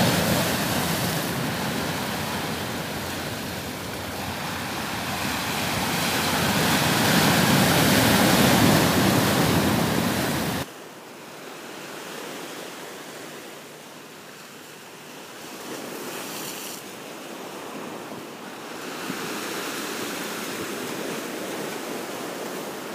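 Sea waves breaking and washing over rocks, with wind rumbling on the microphone. About ten seconds in the sound drops suddenly to a softer surf that swells and ebbs.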